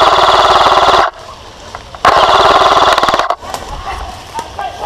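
Airsoft rifle firing two long bursts on full auto, a fast, even rattle of shots. The first burst cuts off about a second in, and the second starts about two seconds in and lasts just over a second.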